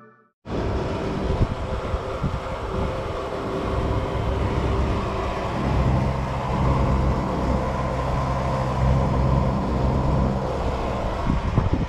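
Car on the move: steady engine hum under road and wind noise, the hum falling away about ten seconds in.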